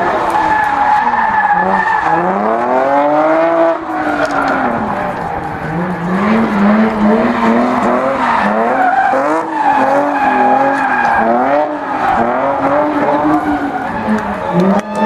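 Nissan 350Z drift car's engine revving hard, its pitch swinging up and down over and over as the car is held in a drift. Under it, the tyres skid and squeal on the asphalt. The rev swings are long at first and come quicker about halfway through.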